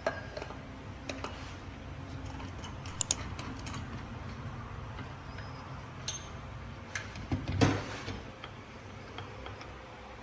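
Scattered metallic clicks and knocks of a small tabletop vise being handled. The loudest is a thump about three quarters of the way in. A low steady hum runs underneath.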